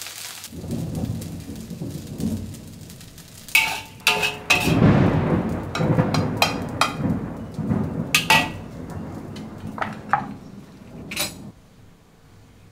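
Metal spatula scraping and clanking against a wok, with a low rough rumble of scraping underneath and a series of sharp ringing clinks, as the stir-fried rice is worked and scooped out. It stops about a second before the end.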